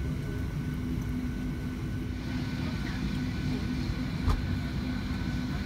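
Steady cabin hum of a Boeing 737-700 standing at the gate, its air-conditioning and ventilation running, with a low droning tone underneath. One short thump a little past four seconds in.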